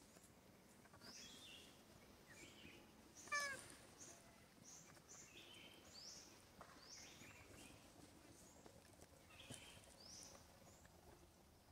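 Faint outdoor ambience with small birds giving short high chirps again and again. About three seconds in comes one brief, wavering, squeaky call from a monkey, the loudest sound here.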